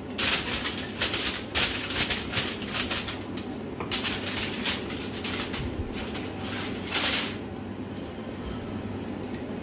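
Aluminium foil crinkling and rustling as it is peeled off a roasting tin, a dense run of sharp crackles that stops about seven seconds in. A steady low hum runs underneath.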